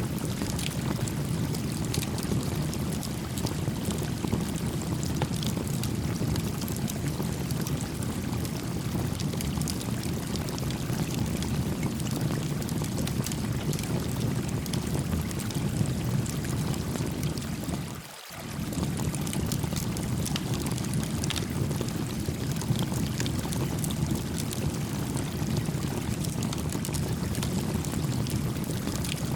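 Gently flowing creek water with a small campfire crackling: a steady rushing murmur dotted with light, scattered pops. The sound drops out briefly about eighteen seconds in, then returns unchanged.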